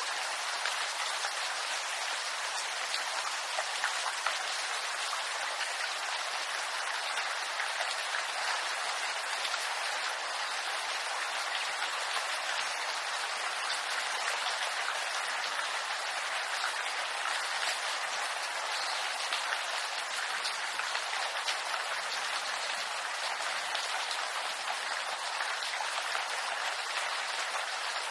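Steady rain falling in a bamboo grove: a dense, even patter of raindrops, mostly high and hissy with little low rumble, with no let-up or change.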